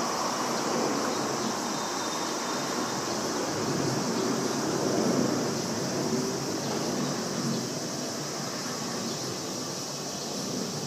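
Jet noise from a Fuji Dream Airlines Embraer regional jet's twin turbofans at climb power after takeoff: a steady rumble that fades slowly as the aircraft climbs away.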